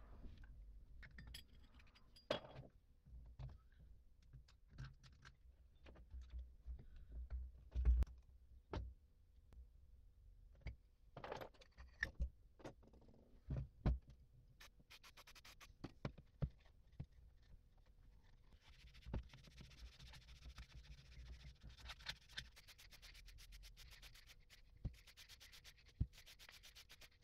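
Metal parts of a car starter motor being handled and scraped by gloved hands: scattered clinks and knocks with scratching, then a steadier rapid rubbing through the second half.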